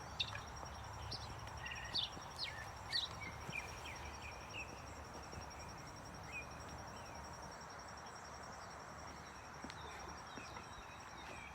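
Mockingbird singing faintly, a string of varied short chirps and whistles that thins out after about five seconds. A steady, high, thin pulsing tone runs underneath, with outdoor background noise.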